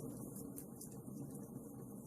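Wood fire burning in a fireplace: a steady low rumble of flames with a few faint small crackles.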